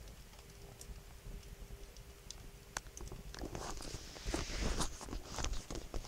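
Wood fire crackling in a stone fireplace: scattered sharp pops, then from about halfway a louder, denser run of crackles with a hiss.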